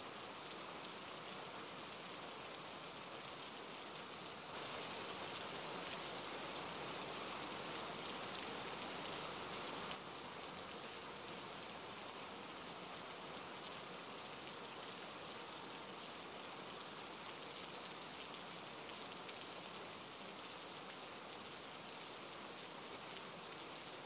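Steady patter and hiss of falling water, a little louder for about five seconds starting a few seconds in.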